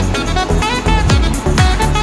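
Background music with a steady beat about twice a second and a melody over it.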